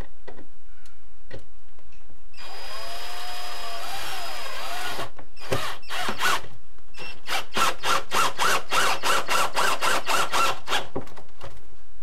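Cordless drill-driver driving drywall screws up through a scrap wood board into the underside of a desk. The motor runs for a few seconds with its pitch wavering, then from about seven seconds in it runs again in rapid pulses, about five a second.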